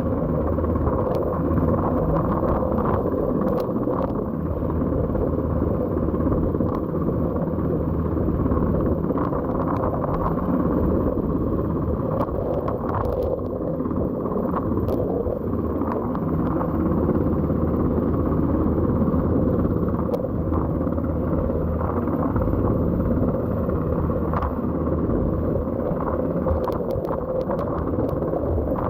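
Coast Guard helicopter hovering, its rotor and engine making a steady loud drone, mixed with strong wind noise.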